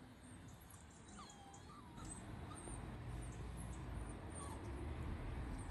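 A puppy whimpering faintly a few short times, over a low rumble that grows louder about two seconds in.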